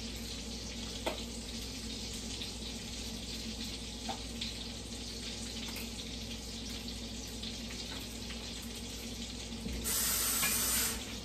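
Sausage sizzling steadily in a skillet, with a couple of light knife knocks on a cutting board. Near the end a kitchen tap runs briefly, for about a second, louder than the rest.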